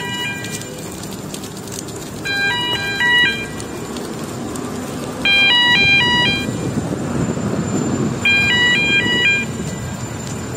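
Electronic warning alarm of a ship-to-shore container crane playing a short tune of stepped beeping notes, repeated about every three seconds, over a steady low machinery rumble.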